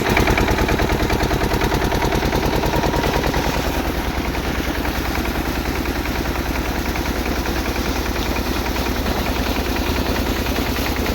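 15 HP engine running steadily with a rapid, even beat while driving a 6-inch water pump under load, not labouring.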